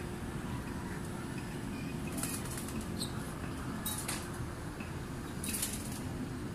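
Steady low background rumble with a faint steady hum, broken by four brief rustles about two, three, four and five and a half seconds in.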